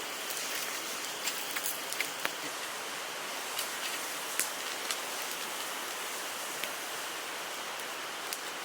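Hardwood fire crackling, with scattered sharp pops over a steady hiss.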